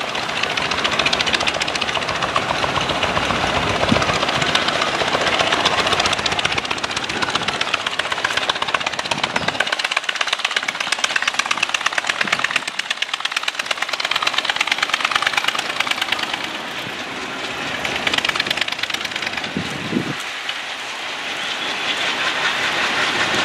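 Indian Railways diesel locomotive's engine running under load as it pulls a long passenger train away from a station: a loud, steady, rapid mechanical clatter. Black exhaust smoke near the end shows the engine working hard.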